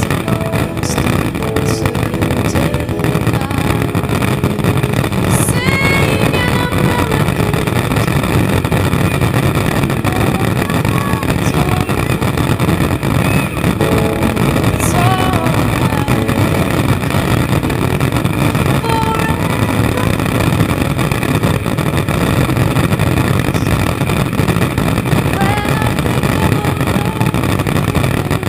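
Fireworks finale barrage: shells bursting in such quick succession that the booms merge into one loud, steady rumble, with sharper reports standing out now and then.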